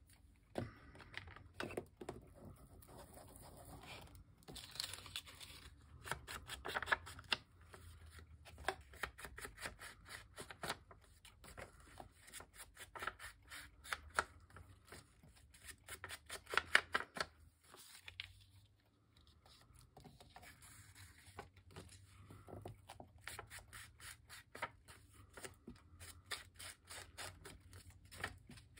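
Faint papercraft handling: paper being rubbed and scraped, with short scratchy bursts and clicks, as paper pieces are inked and cut.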